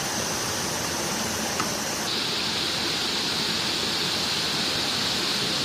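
Stream water running steadily through a rocky ravine. A steady high hiss sits on top and shifts a little lower and louder about two seconds in.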